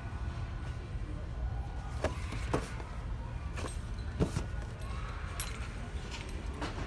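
Boxed dolls being shuffled and knocked together by hand on a store shelf: several short knocks and rustles over a steady low hum of store background noise.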